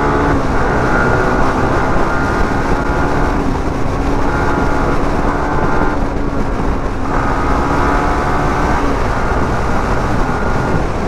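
Sport motorcycle engine running at road speed, heard from the rider's seat under heavy wind and road rumble. The engine note drops away briefly twice, as the throttle is eased.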